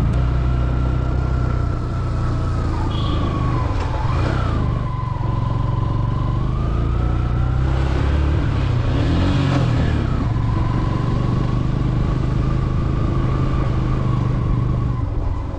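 Motorcycle engine working under load, pulling two riders up a steep hill road. Its note runs steadily, falling about four seconds in, then rising and falling again around eight to ten seconds as the throttle changes.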